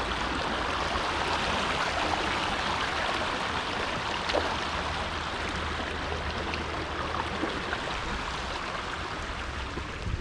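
Creek water running over rocks: a steady rushing and gurgling.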